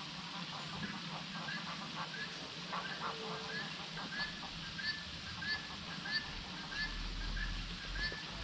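A bird calling a short, nasal, honk-like note over and over, about twice a second, starting about four seconds in; scattered shorter calls come before it.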